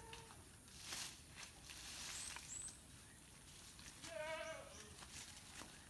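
Goat bleating: a brief call at the start and a longer, wavering bleat about four seconds in, with scattered soft crackles between.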